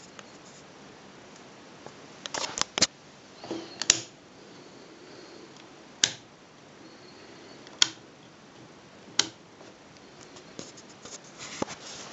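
Handling noise on a handheld camera: scattered sharp clicks and brief rustles at irregular intervals, over a faint steady hiss.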